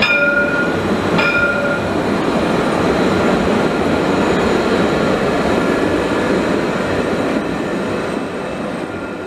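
Alstom Citadis light-rail trams rolling past close by on street track, a steady rumbling run that fades near the end. Two short high tones sound at the very start and again about a second in.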